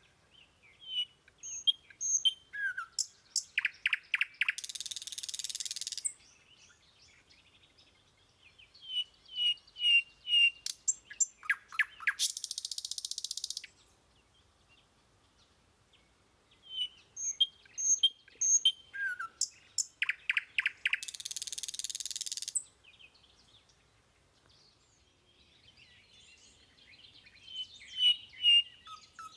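Small birds chirping in a recording that repeats about every eight and a half seconds: each round is a string of short chirps, then a quick run of clicks and a hiss lasting about a second and a half.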